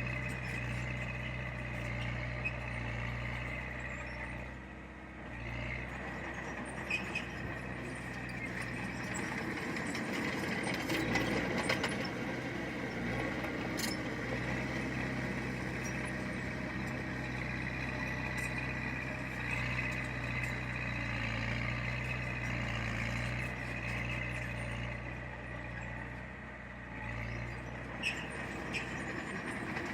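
Heavy diesel earthmoving machine running steadily, with scattered sharp metallic clicks.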